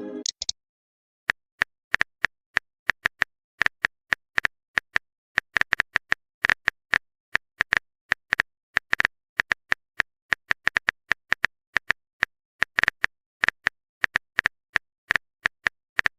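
Typing sound effect: rapid, irregular keyboard clicks, several a second with short pauses, starting about a second in.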